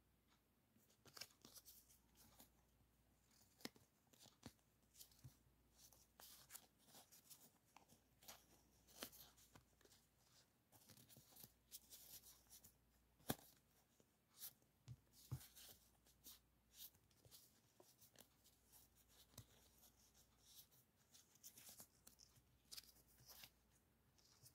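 A handful of small die-cut paper sticker flakes rustling and clicking against each other as they are leafed through by hand, with light scattered crinkles and taps and one sharper click a little past the middle.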